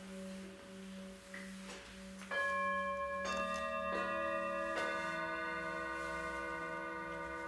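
Singing bowls struck with a wooden mallet: about four strikes between two and five seconds in, each setting off a new ringing tone with many overtones, layering over a low tone still sounding from before.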